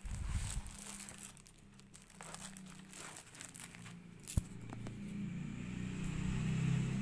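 Plastic wrapping crinkling and cardboard packaging rustling as a flat boxed item is handled, with one sharp click about four seconds in. A low hum grows louder toward the end.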